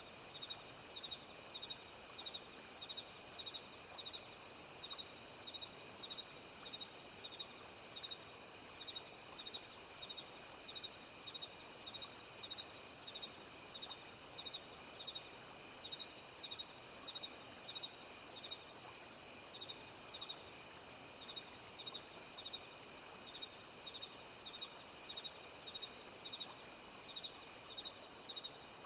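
Insects chirping, cricket-like: short high chirps repeating evenly about twice a second over a steady faint high drone.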